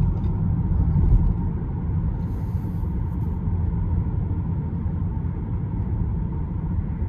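Steady low road and tyre rumble heard inside the cabin of a moving Tesla Model 3 Performance, with a faint steady high tone throughout and a brief faint hiss about two seconds in.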